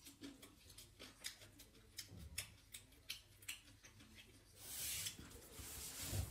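Chewing and lip-smacking close to the microphone: a string of small wet clicks. About four and a half seconds in, a louder hissing rustle starts and runs on for over a second.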